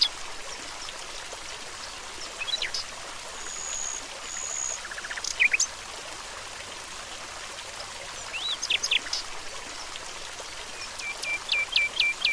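Stream running, with wild birds calling over it: scattered short chirps, two high thin whistles about four seconds in, and a quick run of repeated chirps near the end.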